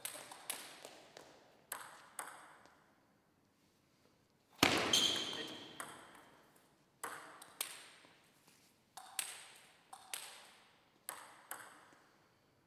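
Table tennis ball bouncing: a series of sharp, separate clicks with a short echo off the hall. About four and a half seconds in there is one much louder knock with a brief high ring.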